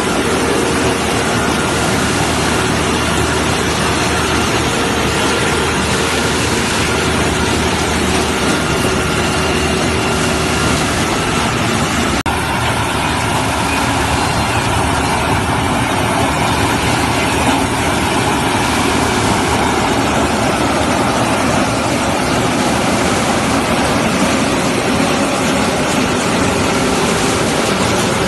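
4YZ self-propelled corn harvester running steadily under working load, its engine and harvesting machinery making a continuous loud noise with a steady hum of tones.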